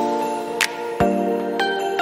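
Soft new-age background music: sustained chords struck about once a second, with a short bright tick just after half a second and higher bell-like notes coming in near the end.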